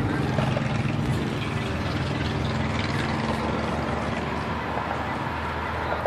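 Caterpillar C7 inline-six diesel engine of a Blue Bird Vision school bus running steadily, heard from inside the bus along with an even hum of road and cabin noise.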